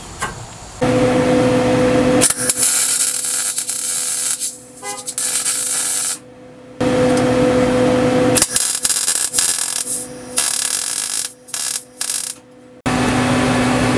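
MIG welder arc sizzling on steel exhaust tubing as the pipe joints are welded, in two long runs with a short pause around six seconds and a few brief stops near the end.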